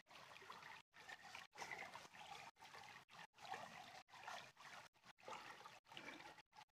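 Faint trickle of flowing river water, cutting out briefly every so often.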